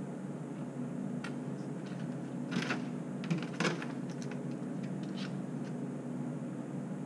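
Kitchen wall-cabinet door and items being handled at a counter: a few short knocks and clicks, the loudest two near the middle, over a steady low hum.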